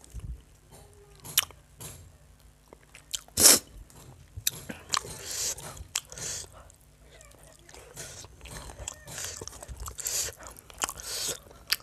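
Eating rice and chicken curry by hand: fingers mixing rice into the gravy on a steel plate, along with close-up chewing and mouth sounds as many short clicks and wet smacks. A sharp click about three and a half seconds in is the loudest sound.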